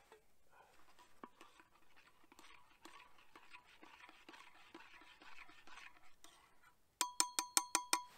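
A spoon stirring in a cup of coffee: faint scraping, then about eight quick ringing clinks against the cup near the end.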